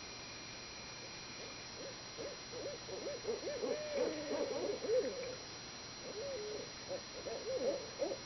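Several owls calling back and forth in fast, wavering cackles that swoop up and down in pitch, starting about two seconds in, pausing briefly midway, then starting again.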